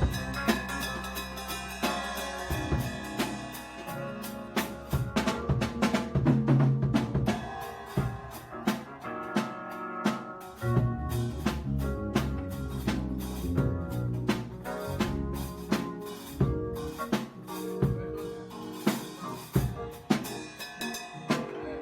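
Drum kit playing a busy pattern of snare, kick-drum and rimshot hits within music, over sustained bass notes.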